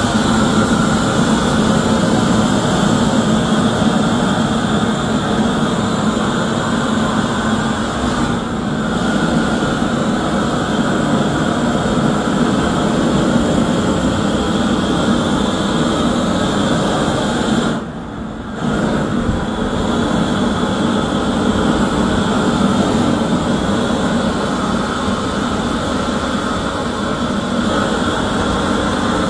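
Handheld propane torch burning with a steady roar as it scorches plywood, briefly quieter about eight seconds in and again for about a second near eighteen seconds.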